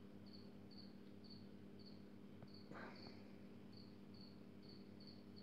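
A cricket chirping faintly and steadily, about two short high chirps a second, over a low steady hum. A brief soft noise about halfway through.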